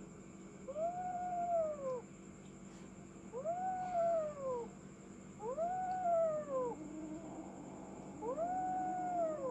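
A cat meowing four times, each a drawn-out call that rises and then falls in pitch, about two to three seconds apart.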